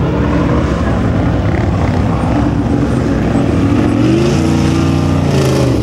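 An off-road vehicle's engine running steadily, revving up and back down about four seconds in.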